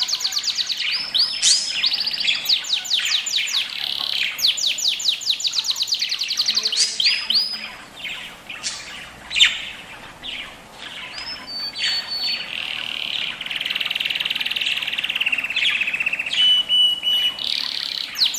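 Budgerigars chirping: rapid runs of repeated high chirps, then a long chattering warble with a few short whistled notes in the second half.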